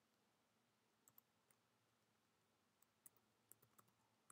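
Faint computer keyboard keystrokes, a few scattered clicks over near silence, as a short word is typed.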